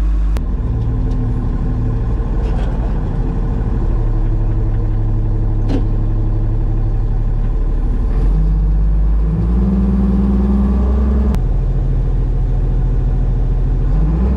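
Diesel engine of a wheel loader running, heard from inside its cab as it is driven, its pitch stepping up and down several times. Near the middle it speeds up for about two seconds, then drops back suddenly with a click; a couple of other sharp clicks come from the cab.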